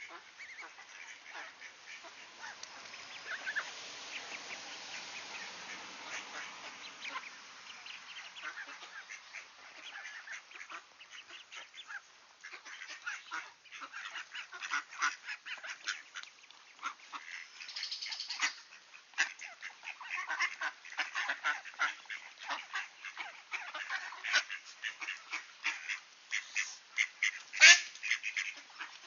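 Ducks and ducklings calling: a run of short quacks and peeps, sparse at first and growing dense and louder in the second half, with one loudest call near the end. A soft rushing noise sits under the first few seconds.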